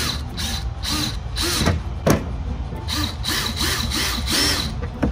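Cordless drill driving screws in a series of short trigger bursts, its motor whirring up and cutting off each time, with a sharp click about two seconds in.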